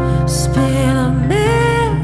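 A live band playing: a melody line slides up to a held note about halfway through, over a steady low accompaniment.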